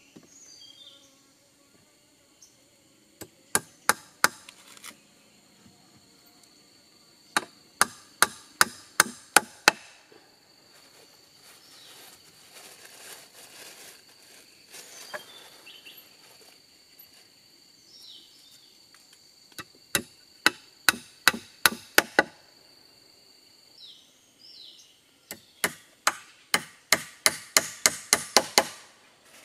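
A hand tool striking wood in four runs of sharp blows, roughly three a second, the last run the longest and quickest. A steady high insect drone runs under most of it and stops about three-quarters of the way in.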